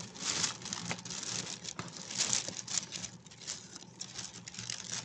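Plastic carry-out bag crinkling and rustling in uneven bursts as the cardboard food boxes inside it are shifted about.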